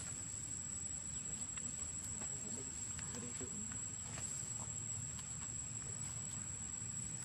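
Insects droning: one steady high-pitched tone that does not let up, over a low background rumble, with a few faint clicks.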